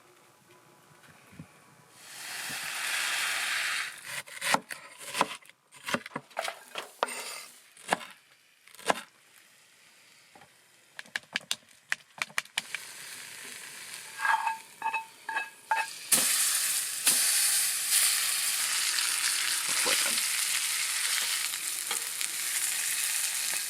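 Trout frying in a hot pan: a steady sizzle sets in about two-thirds of the way through. Before it come a short hiss and a run of clicks and knocks from cooking utensils.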